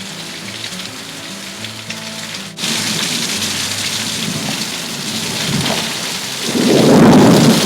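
Heavy rain pouring in a thunderstorm. It jumps louder about two and a half seconds in, and a loud low rumble of thunder builds near the end.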